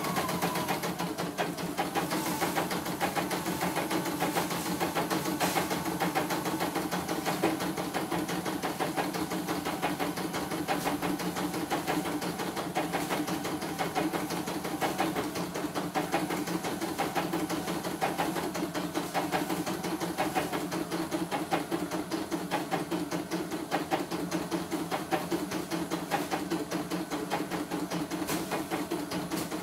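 CNY E900 embroidery machine stitching in a test run after repair, its needle mechanism ticking in a fast, even rhythm over a steady motor hum. It is running smoothly, without skipping stitches.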